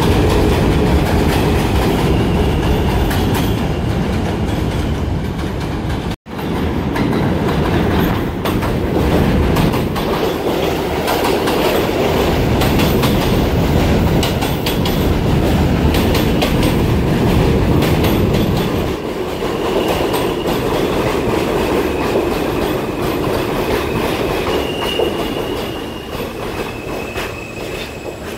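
New York City subway train (F or G local) running through the station with a steady rumble and a rapid clickety-clack of wheels over rail joints. Faint wheel squeal comes in during the second half as the sound eases off. The sound drops out for an instant about six seconds in.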